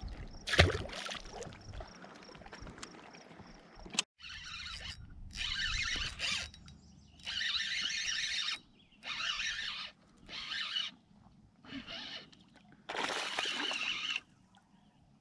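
A fishing reel being cranked in short spurts: about seven separate whirring bursts of around a second each with brief pauses between, as the lure is retrieved stop-and-go. A single loud knock comes about half a second in.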